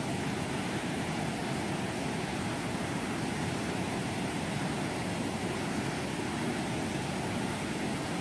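Steady rushing of fast-flowing floodwater, a constant roar with no breaks.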